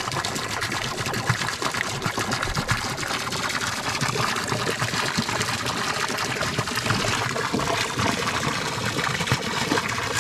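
Water pouring and splashing steadily from the outlet of a poly pipe into a dam, with air bubbles coming out as the pipe is primed to start a siphon.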